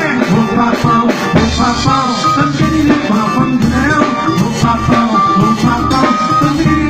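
Band music with a steady dance beat, drums and bass, in an instrumental passage without vocals.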